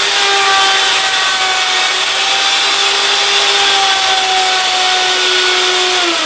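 Einhell TC-RO 1155 E 1100-watt plunge router running at full speed with a steady whine, cutting along the edge of a wooden board. Near the end its pitch starts to fall as the motor winds down.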